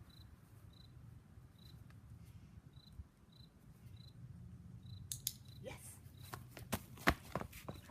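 A small insect chirps in short, high notes at a steady pace over a low hum. About five seconds in, a run of sharp clicks and knocks begins.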